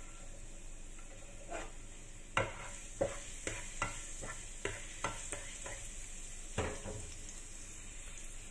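Minced garlic sizzling in oil in a nonstick frying pan, while a plastic slotted spatula stirs it. The spatula knocks and scrapes against the pan about ten times, from a couple of seconds in until near the end.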